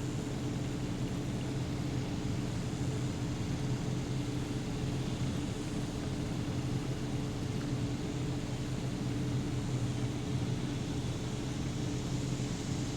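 A steady mechanical hum with a few fixed low tones, unchanging throughout.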